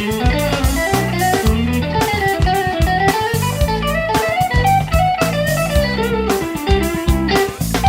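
Ibanez AZES31 electric guitar played through a Mesa Boogie Express 5:25 amp, picking a melodic single-note line that moves up and down over a steady, pulsing low rhythmic part.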